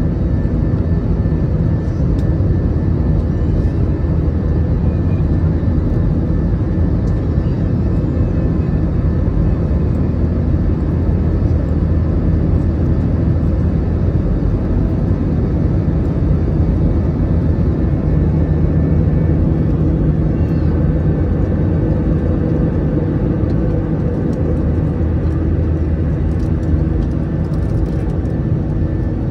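Airbus A321 cabin noise during the climb after takeoff, heard from a window seat over the wing: a steady rush of air and the low drone of the two IAE V2533-A5 turbofans at climb thrust.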